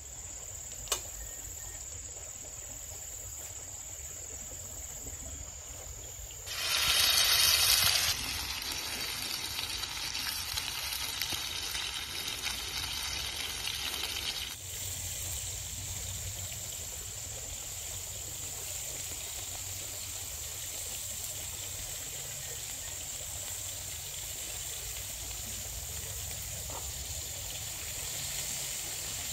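Food sizzling in a frying pan on a portable gas stove, coming in loud about six seconds in, carrying on for several seconds and cutting off suddenly. Before and after it, a steady high-pitched trill of insects over a low rumble.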